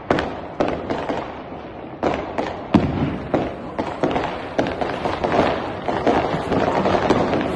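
Fireworks and firecrackers going off: irregular sharp bangs several a second, thickening into a dense crackle from about halfway on.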